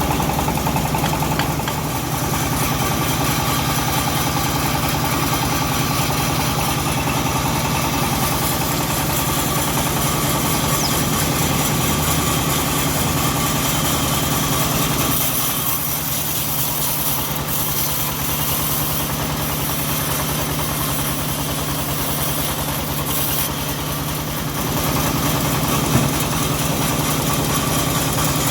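Engine of a homemade bandsaw mill running steadily. About halfway through its low note eases and a high hiss joins in for several seconds, and there is a single sharp knock near the end.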